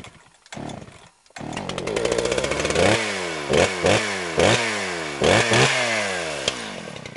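A small petrol engine gives a couple of short sputters, then catches and runs, revved in sharp throttle blips with the pitch sweeping down after each one, and fades away near the end.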